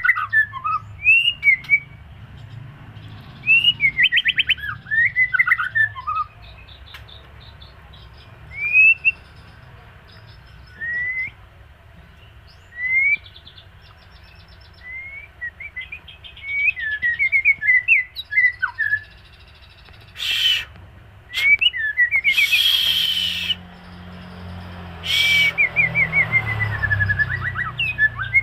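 White-rumped shama (murai) in moult singing in short whistled phrases of slurred rising and falling notes and quick trills, with pauses between them. A few short harsh noisy bursts come in the last third.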